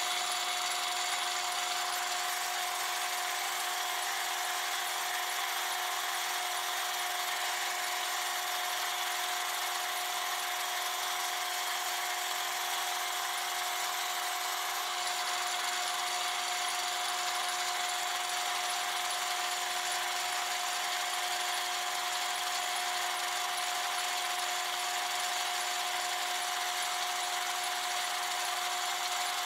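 Metal lathe running at a steady speed after spinning up, its drive giving a steady whine over an even hiss. A faint very high whistle drops out about halfway.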